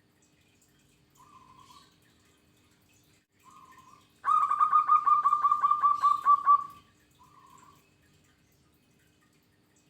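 Zebra dove (perkutut) singing: a couple of soft coos, then a loud rapid run of about a dozen short, evenly spaced cooing notes lasting some two and a half seconds, then another soft coo.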